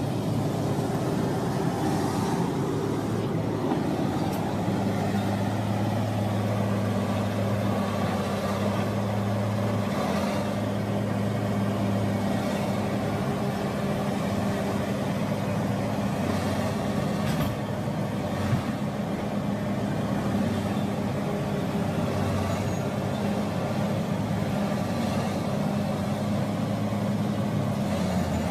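Heavy diesel engine running steadily under load as a Komatsu crawler dozer pushes a loaded log truck, with a few sharp knocks.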